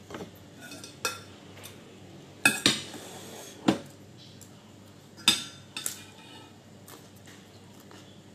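A metal spoon clinking and knocking against a stainless steel bowl and dishes, about half a dozen sharp separate strikes spread over several seconds.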